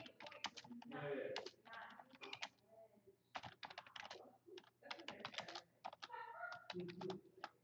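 Computer keyboard keys being typed in quick, irregular runs of clicks, with a brief murmur of voice about a second in and again near the end.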